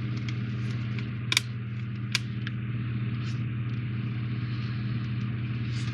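Steady low electrical hum, with a few small sharp clicks, the loudest about a second and a half and two seconds in, from handling plastic model parts while fitting screws.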